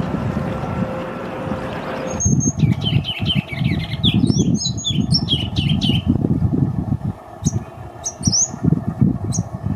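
Ruby-crowned kinglet singing: from about two seconds in, a rapid run of chattering notes, then a few sharp high notes near the end. A low gusting rumble runs underneath. Before the song there is only a steady hiss with a faint hum.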